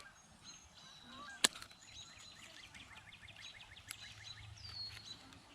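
Faint bird calls and chirps, with a quick trill partway through and a whistled note near the end; a single sharp click about a second and a half in.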